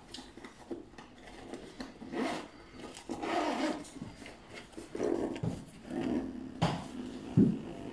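Hands working a padded black nylon ring-light carry bag: fingers rubbing and scratching along the fabric and fiddling with the zipper pull, heard as several separate scratchy strokes. Two sharp clicks come near the end, the second the loudest.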